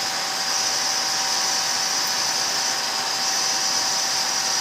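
Centre lathe running, its chuck and a mild-steel workpiece spinning, giving a steady machine whine with a high hiss.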